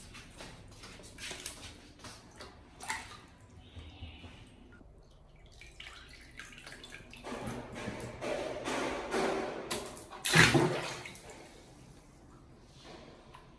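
Water splashing and sloshing in a plastic basin as a baby monkey moves about in it, with a heavy splash about ten seconds in.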